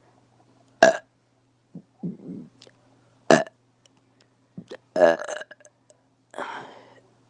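A woman burping several times in short, separate bursts, one every second or so. The longest is a pitched burp about five seconds in.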